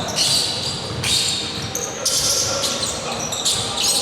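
Indoor basketball game play: sneakers squeaking sharply on the court several times, with a basketball bouncing.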